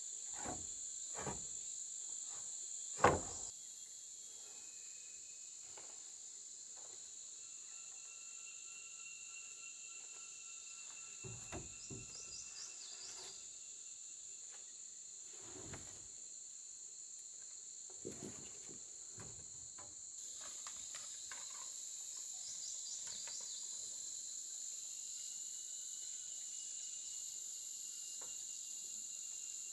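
Steady high chirring of insects, with a few hollow knocks of wooden boards set against a timber frame; the loudest knock comes about three seconds in, and scattered smaller knocks follow.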